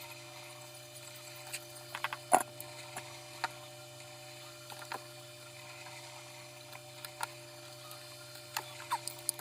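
A steady low electrical hum with scattered light clicks and taps of small parts being handled during an electric fan repair. The loudest tap comes about two and a half seconds in, and a quick cluster of clicks comes near the end.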